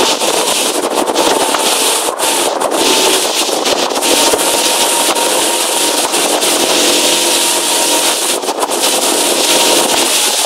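Motorboat running at speed: a steady engine note under a loud hiss of spray and water rushing past the hull.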